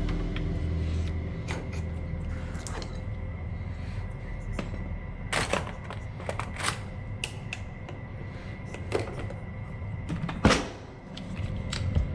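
Irregular metal clicks and taps of a door lockset's parts being handled and worked apart, with a louder knock about ten and a half seconds in.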